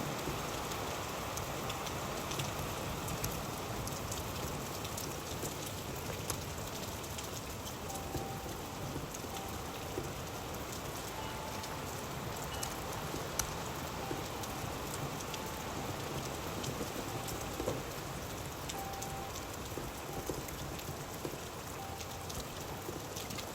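Steady rain falling, an even hiss dotted with many sharp ticks of individual drops striking a surface.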